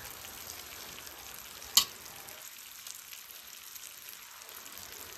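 Pork slices and beef burgers frying on a hot flat-top barbecue griddle, a steady sizzling hiss. One sharp click cuts through about two seconds in.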